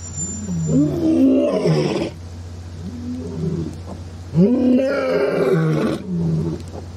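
Male lion roaring: four calls in a row, each rising then falling in pitch, the loudest beginning about four seconds in.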